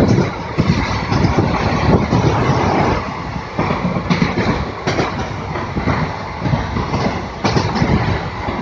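Moving local train heard from inside a carriage at an open window: a steady rumble and rattle of wheels running on the rails, with a few sharp clacks from the track joints.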